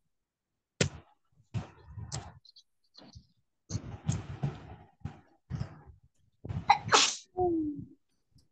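A person sneezes loudly about seven seconds in, after a run of short vocal sounds and breaths.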